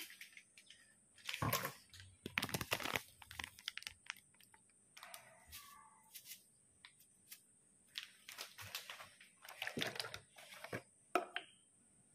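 Wooden pestle crushing and grinding food in a clay mortar: irregular crunching strokes in short clusters with gaps between.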